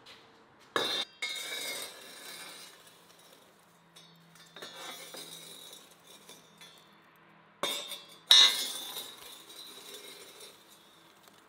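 A long-handled metal rake scrapes across the floor of a wood-fired brick dome oven, pushing the glowing coals about. There are two loud bouts of scraping and clattering coals, about a second in and near eight seconds, with lighter scrapes between.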